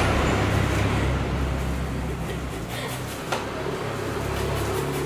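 Green papaya being shredded by hand on metal graters, a rough scraping over a steady low hum, with one sharp click about three seconds in.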